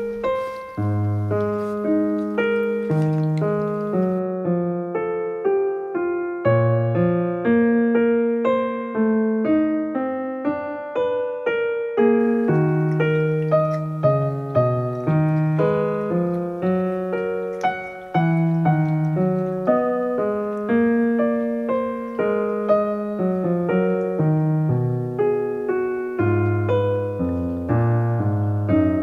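Background piano music: a steady flow of single struck notes and chords, each fading after it is played.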